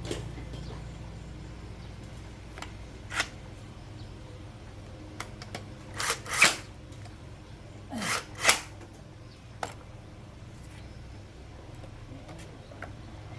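Small tools or parts being handled on a workbench: a few short clicks and scrapes, the loudest two pairs about six and eight seconds in, over a low steady hum.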